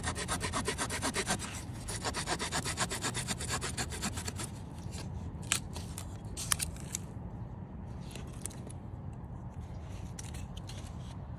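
Small blade sawing through a dry, dead wooden branch: fast, even back-and-forth strokes for about four seconds, then a few scattered scrapes and clicks.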